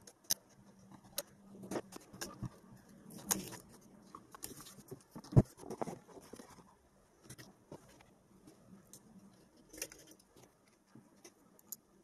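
Irregular small metallic clicks, taps and rattles of hands working bolts, spring washers and metal connecting plates on the terminals of a pack of Headway LiFePO4 cells in plastic holders, with one sharper knock about five seconds in.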